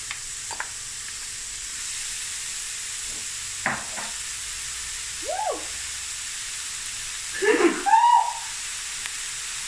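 Beef mince sizzling in a hot frying pan on onion and chili, a steady hiss. Over it a person coughs and splutters a few times, loudest near the end, set off by the chili fumes.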